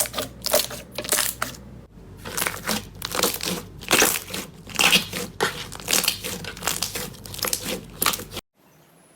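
Slime being squeezed and pressed by hand, giving a quick run of crackling, popping clicks as trapped air bursts. It cuts off suddenly about eight seconds in.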